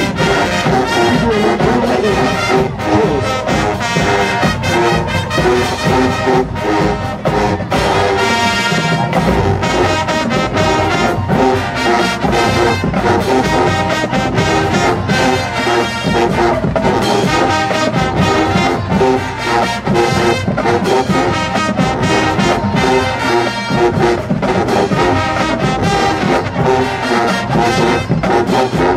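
Marching band playing loudly, led by a full brass section of sousaphones, trombones and trumpets over a steady beat of marching drums.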